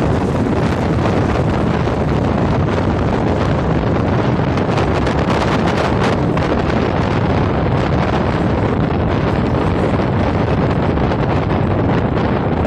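Heavy wind buffeting a microphone held outside a moving passenger train's coach, over the steady rumble of the train running on the track.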